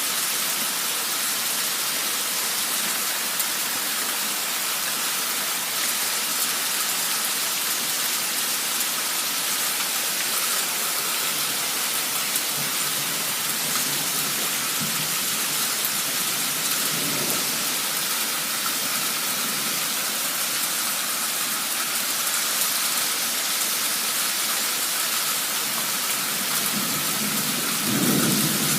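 Heavy downpour of rain, a steady dense hiss, with low rumbles, likely distant thunder, swelling about halfway through and again more strongly near the end.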